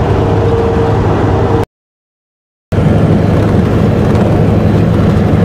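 Steady engine drone and road noise inside a big truck's cab while driving, with a steady whine over it at first. The sound cuts out to silence for about a second, then returns as a lower, even drone.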